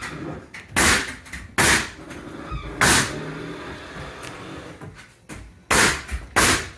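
Five loud, sharp bangs of construction work at irregular intervals, a second or more apart, over a low background of work noise.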